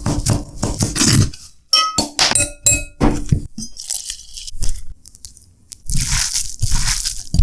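Kitchen utensils clinking, knocking and scraping with crunchy sounds during chicken momo preparation, some strikes ringing briefly; a short spell of hissing noise comes near the end.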